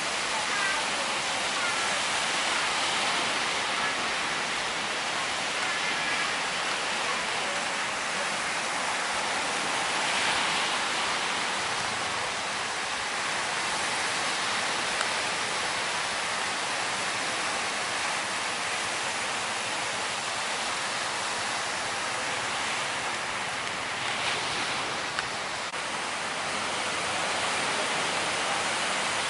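Steady rushing hiss of sea waves breaking against the shore, an even wash of noise with no rhythm or pauses.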